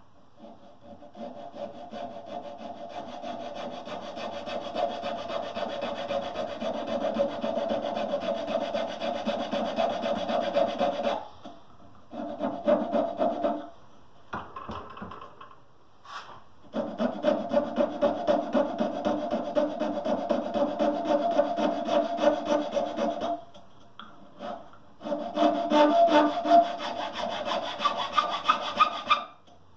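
Small hand file scraping back and forth on a carved piece of pale wood clamped in a bench vise. Quick, even strokes come in long runs, broken by a few short pauses.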